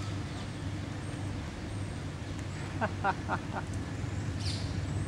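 Steady low outdoor background rumble, with four short pitched sounds in quick succession about three seconds in and a brief higher sound near the end.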